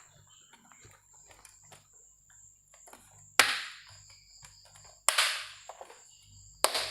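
Three sharp plastic clacks, about one and a half seconds apart, from a laptop's plastic case being handled and set in place.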